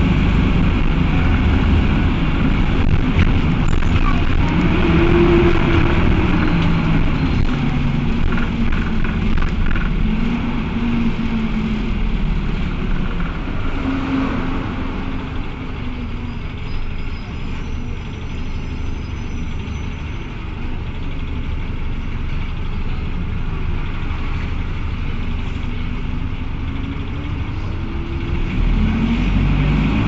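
Four-cylinder Cummins ISBe diesel of an Agrale MT12.0 LE midibus under way, its pitch rising several times as it accelerates, easing off in the middle and picking up again near the end. The radiator fan is running engaged throughout, which the uploader takes as a sign of these Cummins engines' tendency to run hot.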